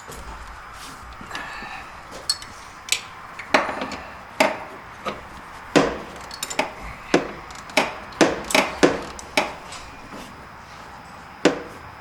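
Hand tools and parts knocking and clacking during engine-bay work: about a dozen sharp knocks at uneven spacing, most of them bunched in the middle, with one more near the end.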